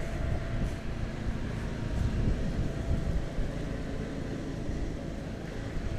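Wind buffeting the microphone outdoors: a low, uneven rumble with no distinct events.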